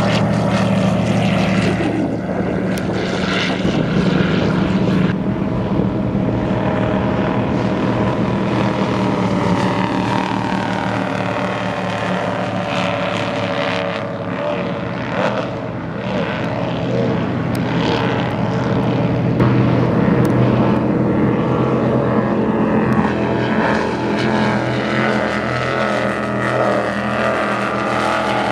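Go-fast offshore powerboats passing at speed, their big engines running hard with a steady drone of engine tones as one boat after another goes by.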